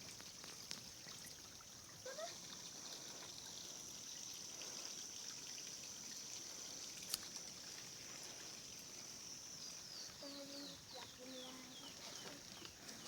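Faint outdoor ambience: a steady high-pitched hiss, with a quick run of falling chirps about ten seconds in.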